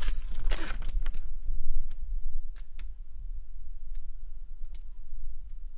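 A hardcover picture book being handled and held up open: a rustle of the pages and cover as it is turned round, then a few faint ticks of fingers on the book, over a steady low hum.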